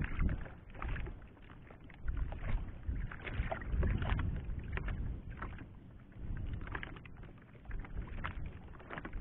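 Water sloshing and lapping against the hull of a small fishing boat, with a low uneven rumble and scattered short knocks and splashes.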